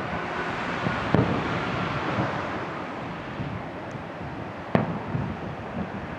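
Two sharp firework shell bursts, one about a second in and one near the end, each trailing off in a low rumble, over a steady rushing noise.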